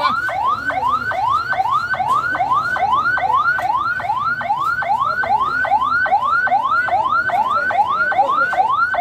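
Ambulance siren yelping: a quick sweep up in pitch that drops back, repeated evenly about two and a half times a second.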